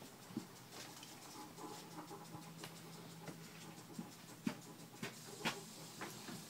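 Faint scattered clicks and light knocks of a horse being tacked up in a stall, with two sharper clicks about four and a half and five and a half seconds in, over a faint low hum.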